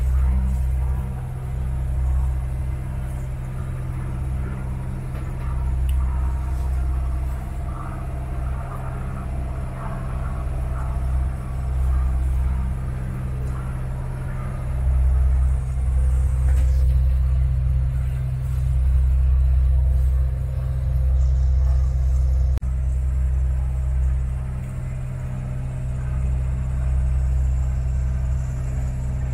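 Motorboat engine running steadily underway: a continuous low drone that swells and eases every few seconds.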